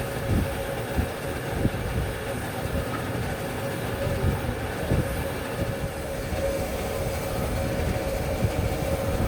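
A woodworking machine running with a steady hum, and irregular knocking and rattling from the work.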